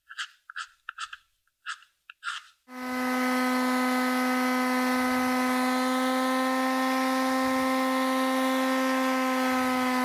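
A file rasping across a small turned wooden knob in a run of short strokes; about two and a half seconds in, an electric palm sander starts and runs steadily with a constant hum while the knob is pressed against its pad to sand it.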